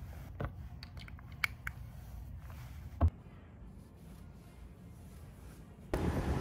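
A few small clicks and taps of objects being handled over a steady low hum, the loudest about three seconds in. Near the end a louder steady rumbling noise cuts in suddenly.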